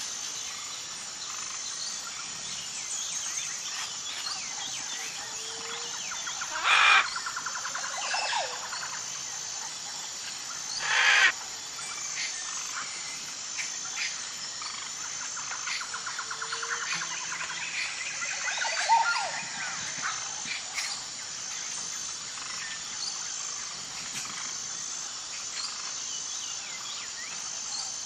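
Outdoor nature ambience: birds chirping and calling, over an even, pulsing high insect chirp. Twice, a few seconds apart, a louder brief burst stands out.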